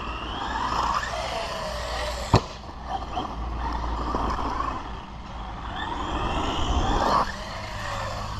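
Maverick Quantum 2 Flux RC monster truck's 3500kV brushless motor whining, rising and falling in pitch as the throttle is worked, with a sharp knock about two and a half seconds in.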